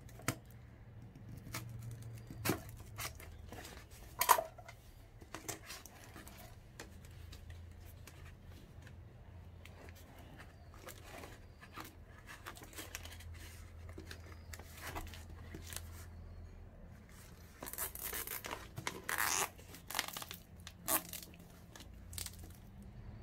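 Packing materials being handled and torn while a potted plant is packed: scattered rustles and clicks, one sharp click about four seconds in, and a run of tearing sounds from about eighteen to twenty-one seconds in.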